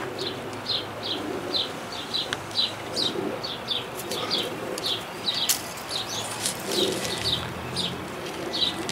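A small songbird chirping over and over, about two to three short, slightly falling chirps a second, with a few sharp crinkles from a plastic wrapper being handled.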